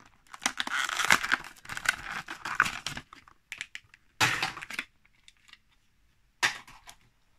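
Clear plastic blister pack of a die-cast car card being crinkled and torn open. A dense crackling runs for the first three seconds, then comes two shorter crackles, about four seconds and six and a half seconds in, as the car comes free.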